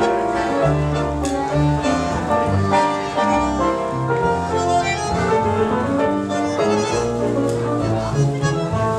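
Tango music from a live quartet of bandoneon, piano, double bass and guitar, with the piano and a deep double-bass line clear.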